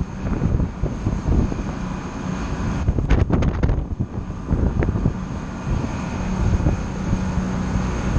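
Wind buffeting the microphone over the steady drone of a boat's engines running under way, with a few brief clicks a little after three seconds in.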